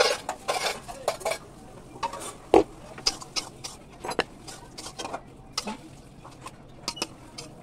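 Metal spatula scraping and knocking against a large metal wok while stirring cooked okra: irregular scrapes and clicks, with one louder knock about two and a half seconds in.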